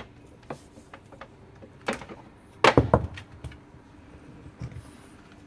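French bulldog puppy gnawing a deer antler: hard clacks and knocks of the antler against teeth and the sill, loudest in a quick cluster about halfway through.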